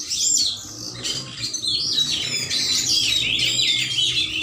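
Several caged oriental magpie-robins (kacer) chirping and singing over one another in quick, overlapping high whistles and chirps, with a brief lull about half a second in.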